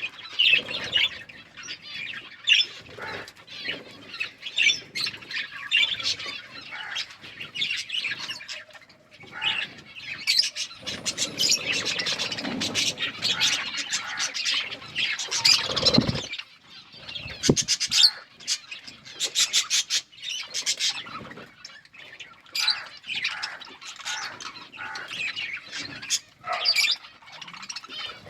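Budgerigars chirping and chattering continuously in quick, busy warbles, with a few runs of rapid clicks in the middle.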